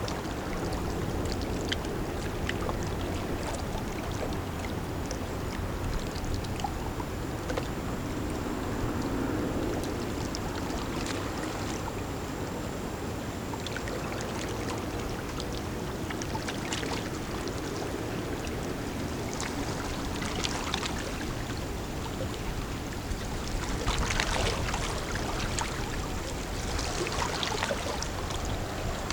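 Steady low rumble of a passing lake freighter with water splashing and trickling, the splashes coming more often in the second half.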